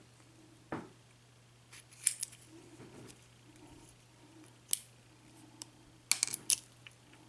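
Scattered light metallic clicks from an Assa oval lock cylinder as its picked plug is turned and pushed out with a follower, with a quick cluster of clicks near the end.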